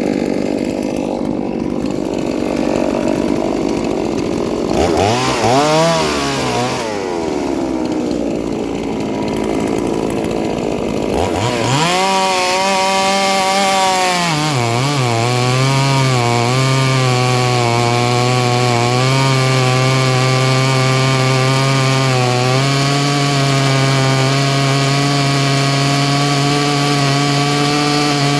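Ported two-stroke chainsaw being warmed up: revved a couple of times about five seconds in, then revved again and held at high revs with small dips in pitch from about twelve seconds on, dropping back near the end.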